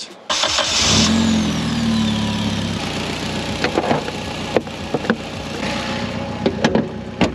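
Turbocharged Mitsubishi MIVEC four-cylinder engine starting: it catches suddenly, flares up, then drops back and settles into a steady idle. A few sharp clicks sound over the idle.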